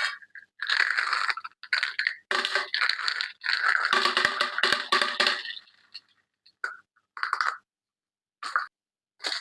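Candy or toy packaging crinkling and crackling in irregular bursts as it is handled and torn open, with a long stretch of crackling in the middle and a few short crinkles near the end.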